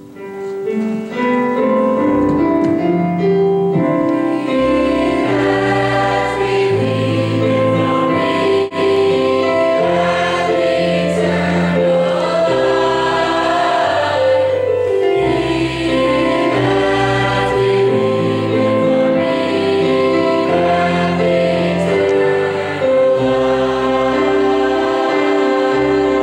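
Choir singing a gospel song with instrumental accompaniment, sustained chords moving over a bass line.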